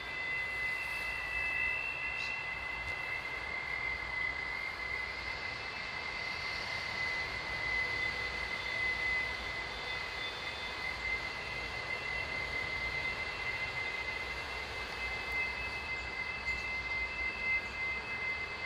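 A piercing, high-pitched creak of unknown origin, heard as if overhead: a steady shrill tone with a fainter higher tone above it, held without a break over a background hiss.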